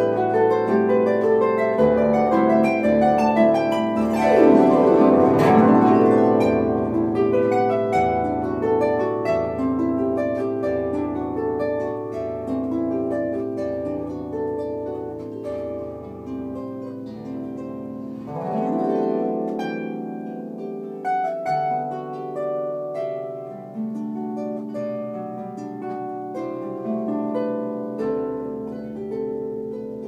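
Electric harp played solo: a plucked melody over held bass notes, with sweeping glissandos about four to six seconds in and again a little past halfway. The playing grows softer through the second half.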